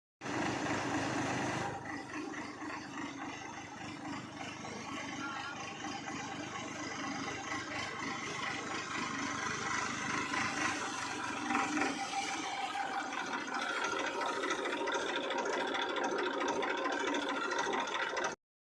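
An engine runs steadily, with voices mixed in. The sound cuts off suddenly near the end.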